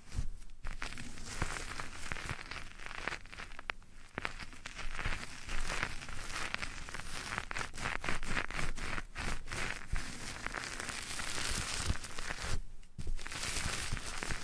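Close-miked ASMR trigger sounds: irregular rustling and crackling with many small clicks and scratches right at the microphone.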